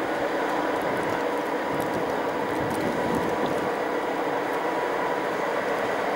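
Steady mechanical whirring and hiss from a train standing at the station, with a faint steady whine over it.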